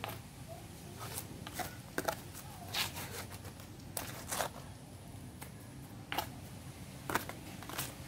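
Hand trowel and flat scraper blade scraping and digging into gritty soil in irregular short strokes, roughly one or two a second.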